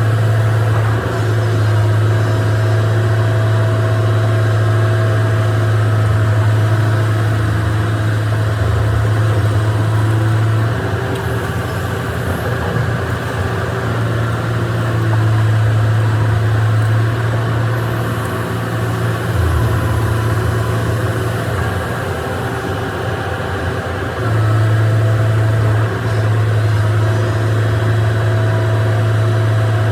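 Excavator's diesel engine running with a loud, steady low drone that wavers and loosens twice in the middle before settling again.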